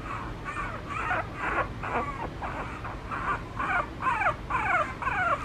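Three-week-old puppy whimpering: a run of short, high cries, about two a second, each sliding down in pitch. The crying is taken by the owner to be from the chilly air-conditioned room.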